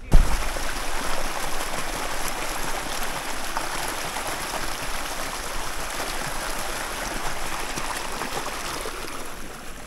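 Small spring-fed creek rushing and splashing over shallow rocky riffles, heard close up as a steady wash of water.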